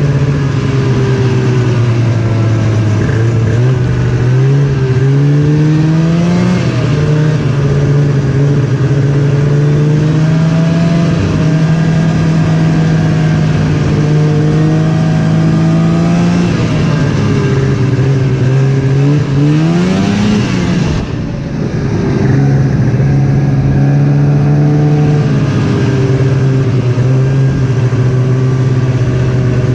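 Snowmobile engine running under way, its pitch shifting up and down with the throttle. About twenty seconds in it revs up, drops off briefly, then picks up again.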